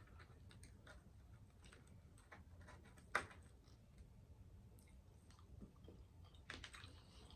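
Quiet, close-up eating sounds of fried croaker fish: scattered soft clicks and crunches of chewing and picking at the fish, with one sharper click about three seconds in.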